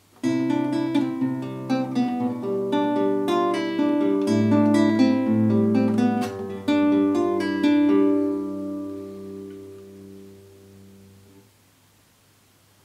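Nylon-string classical guitar played fingerstyle: a short passage of plucked notes and chords, ending on a chord that rings out and fades away over about three seconds. Heard through a camera's built-in microphone about a metre from the guitar.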